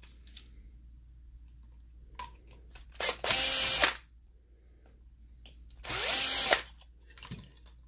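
DeWalt cordless drill/driver spinning screws out of a projector's color wheel mount in two short runs, about three seconds in and again about six seconds in, each winding up and then back down. Light clicks follow near the end.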